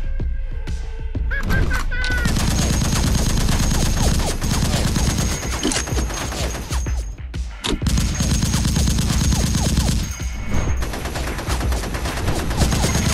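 Motorized Nerf Rival blaster firing foam balls in three long full-auto bursts: rapid clicking over a steady motor hum, with short pauses between bursts.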